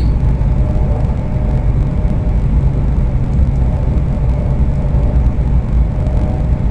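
Steady low rumble and rush of a high-speed train running at speed, heard inside the passenger carriage, with a faint steady hum over it.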